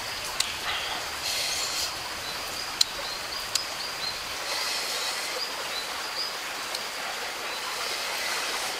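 Outdoor forest ambience: a steady high hiss with several short bird-like chirps and a few sharp clicks, one louder click near the middle.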